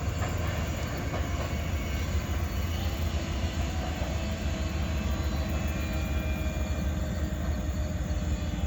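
Union Pacific train rolling slowly as it comes to a stop, a steady low rumble with faint thin wheel squeal in the middle.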